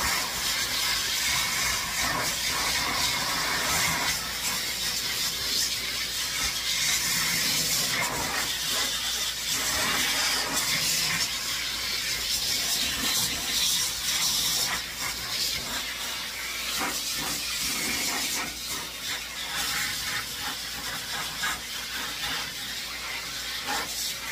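Hose-type pet grooming blow dryer running, a steady loud rush of air that switches on right at the start. In the second half it gets a little quieter and more uneven.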